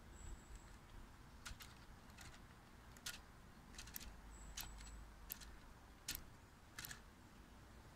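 Light plastic clicking and ticking from a hand-turned Lego Technic motorcycle model, its rear wheel driving the chain, gears and piston engine. About eight sharp ticks come at uneven intervals over otherwise near-silent background.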